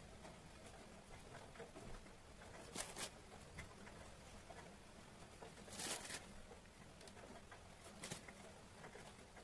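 Near silence: faint room tone, broken by three brief, soft rustles about three, six and eight seconds in.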